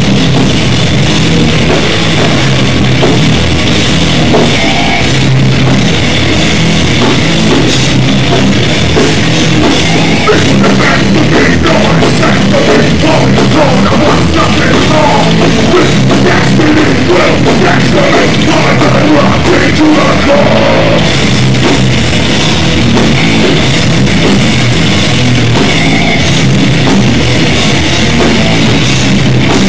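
Live hardcore band playing loud and without a break: electric guitars, bass and a drum kit, with a shouted vocal over the top.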